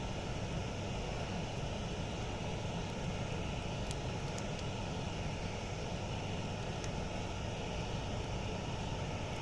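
Campfire burning with a steady low rumble and a few faint crackles, about 4 and 7 seconds in.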